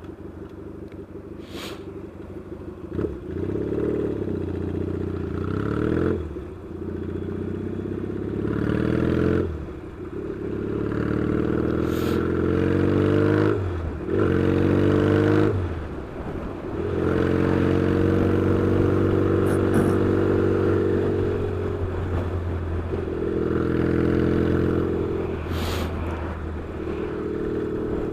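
Yamaha XS650 parallel-twin motorcycle engine pulling up through the gears. The engine note climbs, breaks off briefly at each upshift, then settles into a steady cruise from about halfway through, with a few short clicks along the way.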